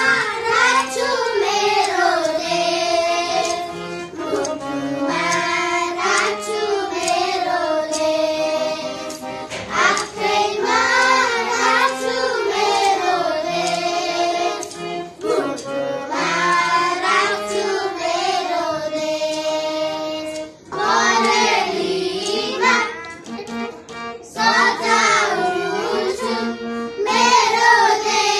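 A small group of young children singing a song together, in phrases of a few seconds with short breaks between them.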